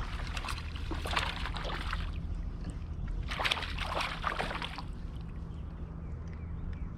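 Water sloshing and splashing around a kayak in two bursts, one about a second in and a longer one near the middle, over a steady low rumble.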